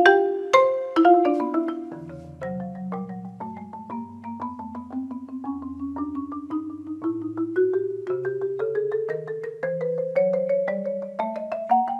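Adams concert marimba played solo: loud struck chords at first, then from about two seconds in a softer passage of held, rolled notes over low bass notes. The upper line climbs steadily in pitch while the playing grows louder toward the end.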